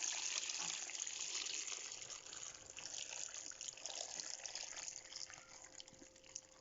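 Water running from a tap, a steady gushing hiss that slowly grows quieter.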